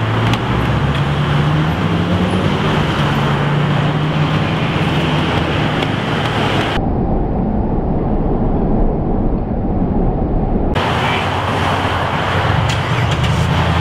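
Street traffic: cars running and passing with a steady low engine hum. Partway through, the sound turns muffled for about four seconds.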